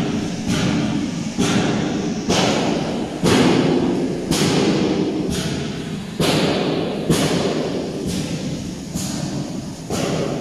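Loud thumps repeating roughly once a second, each with a short trailing ring, over a steady background din.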